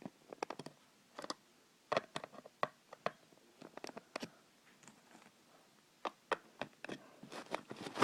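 Plastic Lego minifigures and pieces being handled and set down: scattered light clicks and taps at irregular intervals.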